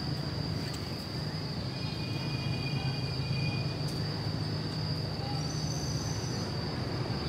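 A steady low mechanical hum with a thin, steady high-pitched whine above it and a few faint clicks.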